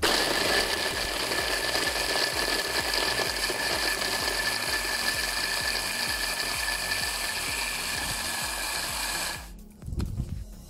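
Electric hand blender's chopper attachment running steadily as it grinds Maltesers into crumbs: a motor whine that cuts off about nine and a half seconds in, followed by a few low bumps as the bowl is handled.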